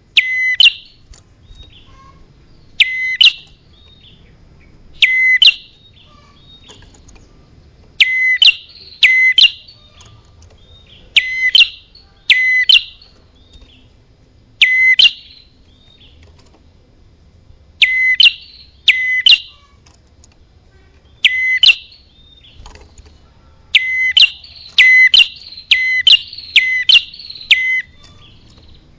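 Recorded small-songbird calls from a bird-lure track made for prinias (prenjak). Loud, sharp call notes come singly or in pairs every couple of seconds, with a fast run of them near the end and fainter chirps between.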